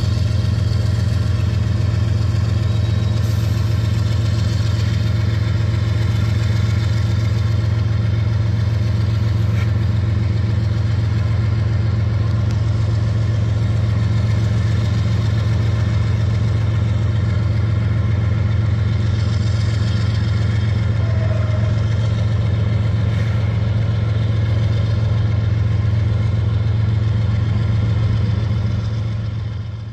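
Diesel locomotive engines running under power with a steady deep drone that holds one pitch throughout, as a loaded gravel hopper train pulls out. The sound fades away near the end.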